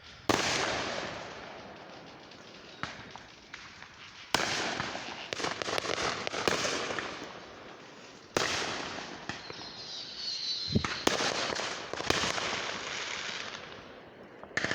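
Fireworks going off: sudden loud bangs roughly every four seconds, each followed by a few seconds of dense crackling and rapid popping that fades away.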